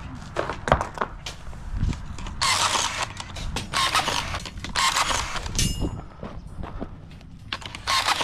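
A cordless rebar tying tool fires about four times, each a short whirring burst as it wraps and twists tie wire around a rebar crossing. Sharp clinks and knocks of the rebar come in the first two seconds.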